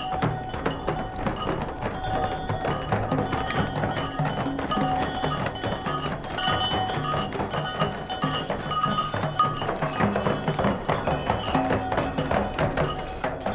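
Instrumental music with dense, fast percussion under held melodic notes.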